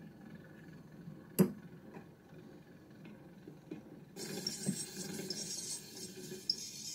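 Victor acoustic phonograph after the 78 rpm record has ended, the soundbox being handled: one sharp click about a second and a half in. From just past the halfway point comes a few seconds of hiss and crackle from the needle on the spinning shellac disc.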